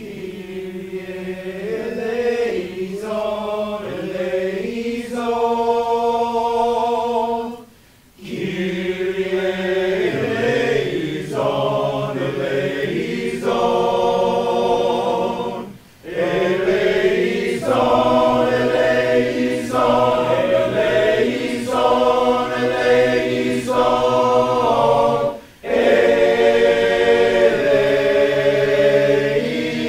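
Men's choir singing in harmony, holding long chords, with three short breaks between phrases.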